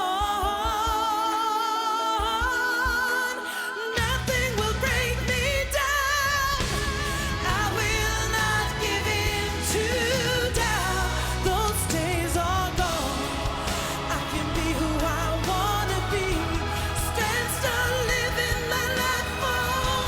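Woman singing a pop song live with a band. She holds a long note with vibrato over light accompaniment, then about four seconds in the full band with bass and drums comes in under her singing.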